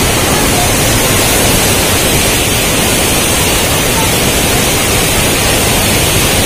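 Waterfall roaring: a loud, steady rush of falling water.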